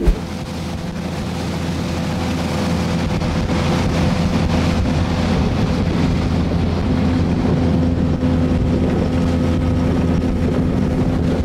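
Boat's outboard motor running steadily under way, a constant low hum with water and wind noise, growing a little louder over the first few seconds.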